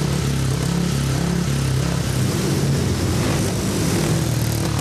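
An engine running steadily, with an even low hum over a broad rushing noise.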